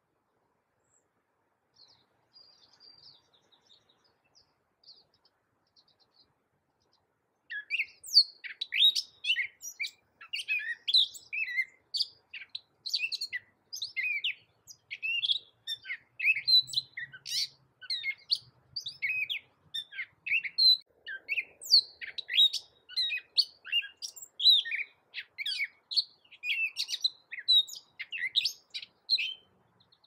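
Gray catbird singing: a few faint, scattered high notes, then from about seven seconds in a fast, unbroken run of short, varied notes that changes from note to note.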